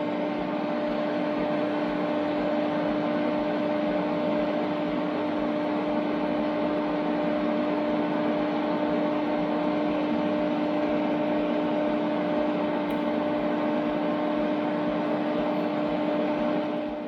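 Welder's wire feed motor running steadily, pushing 1 mm aluminium MIG wire through the drive rollers and torch liner, a steady hum that stops near the end.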